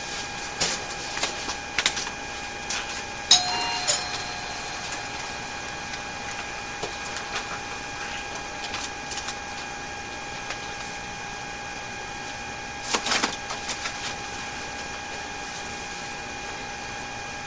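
Store security camera's room sound: a steady electronic whine under scattered clicks and knocks of handling at the shop counter. A loud click with a short beep comes about three seconds in, and a cluster of knocks about thirteen seconds in.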